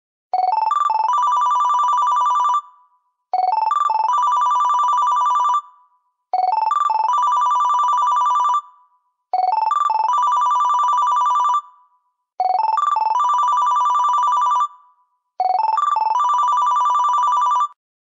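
Digital phone ringtone ringing six times, about three seconds apart. Each ring is a few quick electronic beeps that lead into a fast trill between two close tones, lasting a little over two seconds. The last ring cuts off suddenly near the end.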